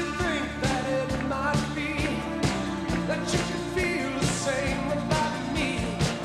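Rock band playing a song with a male lead vocal, sung over a steady drum beat and bass guitar.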